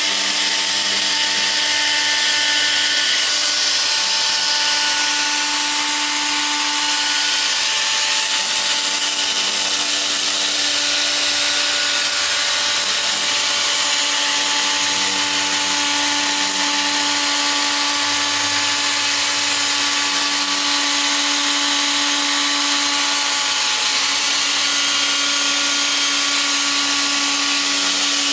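DeWalt cordless drill running at a steady speed, spinning a 3000-grit sanding disc across a wet plastic headlight lens: a steady motor whine over the hiss of the wet sanding.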